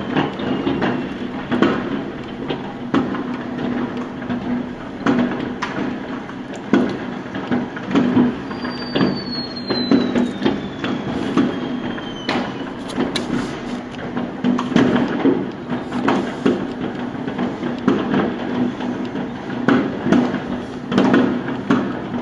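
Massed New Year's Eve fireworks and firecrackers going off all around, a continuous irregular crackle of bangs and pops. Twice the whistle of a rocket falls in pitch, once near the start and for a few seconds in the middle.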